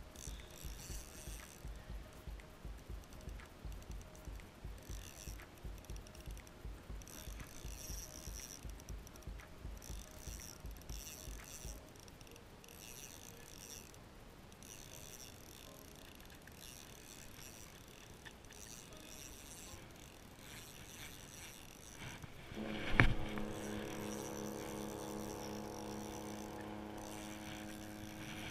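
Shimano Soare spinning reel being cranked while playing a fish: a rhythmic whirring that pulses about two to three times a second, then slower, on-and-off winding. About 23 seconds in comes a sharp knock, followed by a steady hum of several tones.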